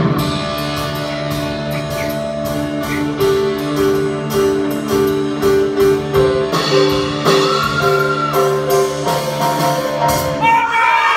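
Live band accompanying a show choir's dance section: held chords over drum hits and a note pulsing about twice a second. The music breaks off about ten seconds in, and the audience starts cheering and whooping.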